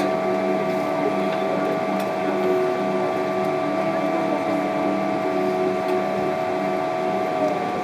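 Boeing 777-300ER cabin hum from the air-conditioning and ventilation: a steady whir with several held tones over an even rush. Near the end one of the tones slides down in pitch.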